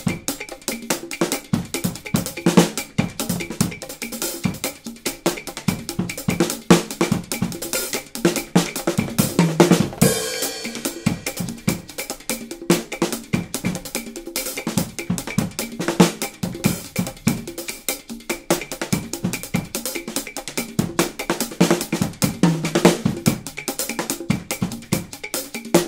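Drum kit played in a fast, busy pattern with sticks: rapid strokes on snare and toms, with a cymbal crash about ten seconds in.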